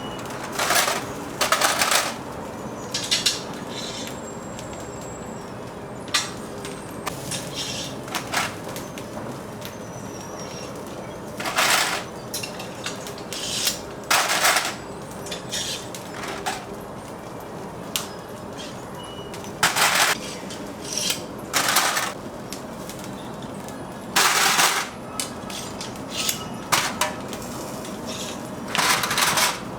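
Intermittent clatter of food-stall work: about a dozen short knocks and scrapes at irregular intervals over a steady low hum.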